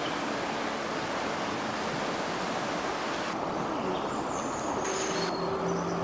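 Fast-flowing river rushing: a steady wash of water noise, its hiss thinning a little about three seconds in.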